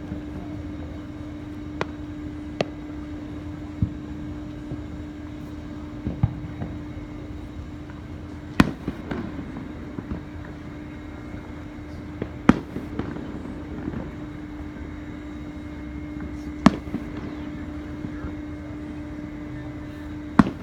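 Fireworks going off: scattered sharp bangs several seconds apart, some followed by a brief rumble, the loudest about halfway through. A steady low hum runs underneath.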